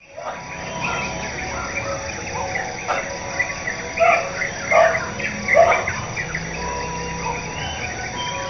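Morning ambience of insects trilling steadily, with birds chirping and calling over them. The loudest calls come about four, five and five and a half seconds in.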